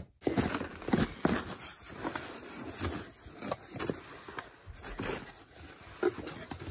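Cardboard shipping box being opened by hand: the flaps scrape and the plastic packaging bags inside crinkle, in a run of irregular rustles and light knocks.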